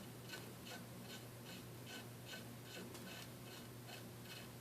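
Faint, even ticking about three times a second over a low steady hum.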